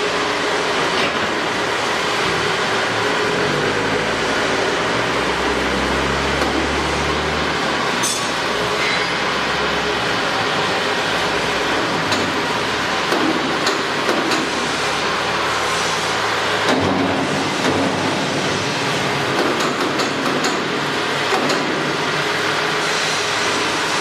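Steady, loud machinery noise with a low rumble that shifts in pitch, and scattered clinks and knocks.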